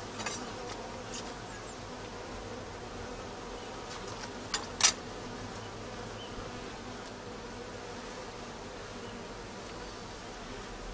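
Steady droning hum of a honeybee colony around an open hive, with one sharp click about halfway through.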